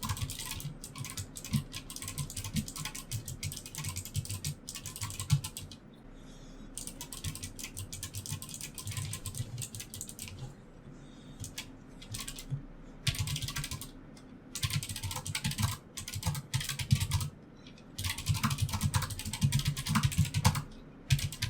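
Typing on a low-profile mechanical keyboard with clicky blue switches, a fast, uneven run of sharp key clicks with short pauses between bursts.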